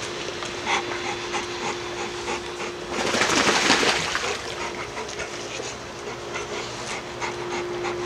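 American bully dog panting rapidly, about three quick breaths a second, with a louder rushing burst of breath about three seconds in.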